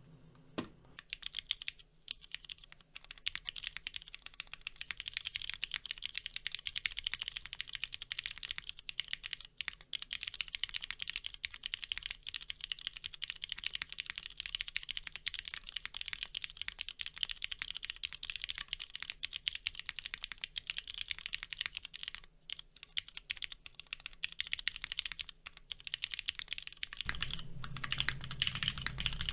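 Continuous fast typing on a Cannonkeys Bakeneko60 mechanical keyboard with a carbon fibre half plate, no case foam, linear switches and GMK Norse keycaps: a dense stream of bright keystroke clacks. The first part is picked up through a phone's microphone. Near the end the typing sounds fuller, with more low end.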